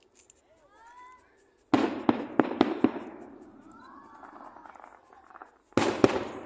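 Aerial fireworks bursting: a loud bang about two seconds in followed by a quick series of sharp cracks, then another loud bang near the end, each trailing off in echo.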